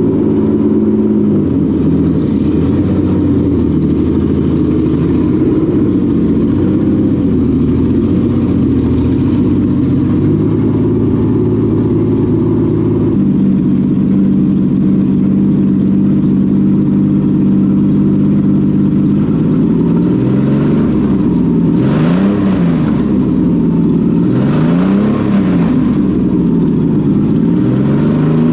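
Subaru EG33 3.3-litre flat-six running at a high idle of around 1500 RPM, its intake vacuum fittings taped off. The idle steps up slightly about halfway through, and near the end the engine is revved up and let fall back a few times.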